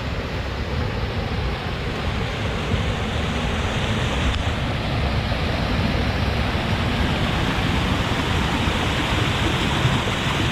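Loud, steady rush of flowing water from a creek or waterfall, swelling slightly over the first few seconds.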